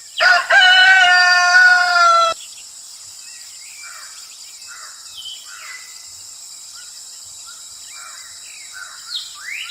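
A rooster crows once, a single loud call of about two seconds that falls slightly in pitch at the end, followed by small birds chirping faintly and intermittently.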